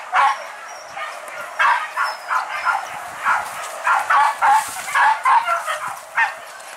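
Hunting dogs barking and yelping in quick, uneven bursts during a wild boar hunt.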